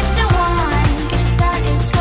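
Upbeat pop background music with a steady drum beat of about two kicks a second under a synth melody.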